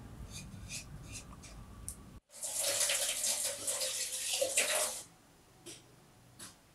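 A low rumble with faint ticks, then, after an abrupt cut, water pouring for about three seconds before it stops suddenly.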